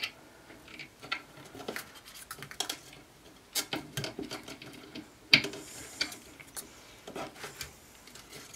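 Picture-hanging wire being wrapped tightly around a small screw-in hook on a wooden board: scattered light clicks, taps and scrapes of wire and hook, with a sharp click about five seconds in.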